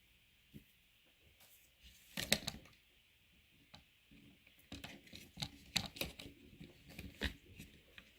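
Plastic organ pieces of a squishy human-body anatomy toy being handled and fitted together: a short burst of rustling clicks about two seconds in, then a run of small clicks and rustles from about five to seven seconds.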